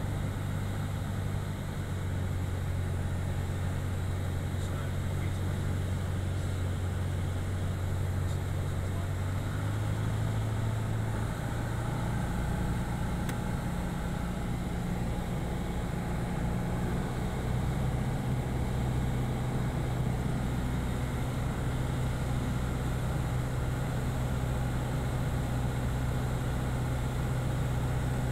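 Piper PA-28 light aircraft's piston engine and propeller droning steadily, heard inside the cabin in flight. The engine note shifts pitch about ten seconds in.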